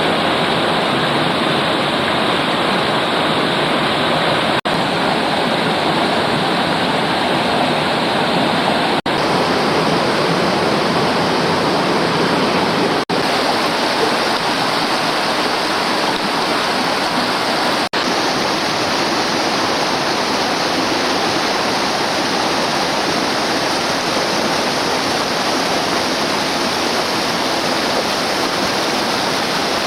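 River water rushing steadily, a loud even noise of flowing water, broken by four very short dropouts in the first two-thirds.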